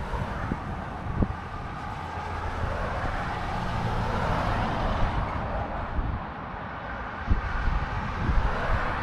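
Brightline passenger train passing, a steady rumble and rush that swells a little midway and again near the end, with a few low thumps.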